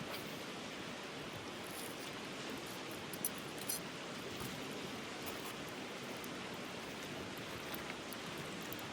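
Steady rush of a flowing mountain stream, with two faint clicks a little past three seconds in.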